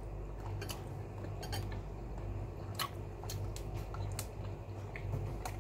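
Cutlery and dishes clicking lightly a handful of times, spaced irregularly, over a steady low hum.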